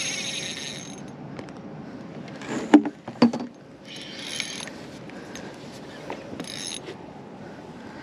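Fishing reel being cranked in short bursts while a hooked fish, taken for a large flathead, is played and brought in. Two sharp knocks about three seconds in.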